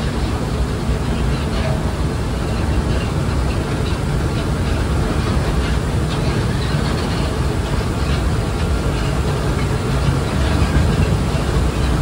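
Hokuriku Juki Kogyo narrow-gauge diesel locomotive's engine running steadily as it travels along the sugar mill's light railway, a continuous low rumble.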